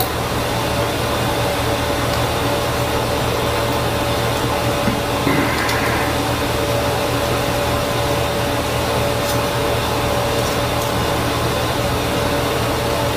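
Steady hiss with a low hum and a thin steady whine, held at about speech loudness, with a brief faint rustle about five seconds in.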